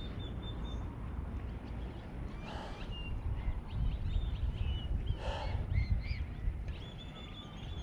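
Birds calling: many short high chirps and whistles, with two short harsh calls about two and a half and five seconds in, over a low rumble of wind on the microphone.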